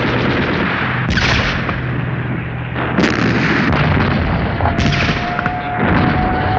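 Artillery shells exploding in a continuous din of battle, with four sudden blasts about 1, 3, 5 and 6 seconds in. A steady whine comes in about five seconds in.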